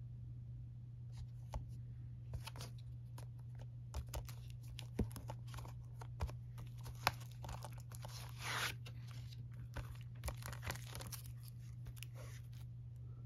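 Shrink-wrapped Blu-ray case handled and turned over in the hands: scattered crinkles and clicks from the plastic wrap and case, with a longer rustle about eight and a half seconds in, over a steady low hum.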